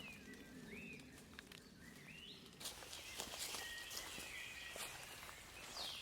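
Faint woodland ambience: birds singing short rising and falling whistled phrases over scattered light ticks, with a soft hiss that grows louder about two and a half seconds in.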